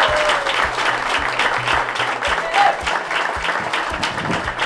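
Audience applauding: a dense, steady clapping from many hands.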